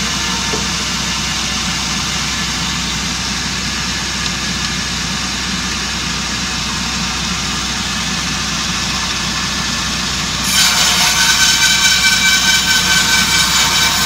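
Band sawmill running, its band blade spinning as the saw head moves up to a large log. About ten seconds in, the blade bites into the wood and the sound turns suddenly louder and brighter, a steady sawing with a high ring.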